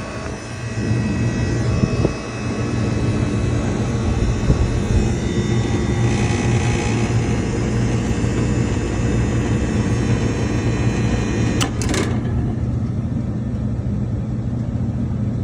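Walk-in freezer's condensing unit running steadily, a low compressor hum under condenser fan noise, with the new defrost time clock and contactor fitted. Two sharp clicks about twelve seconds in.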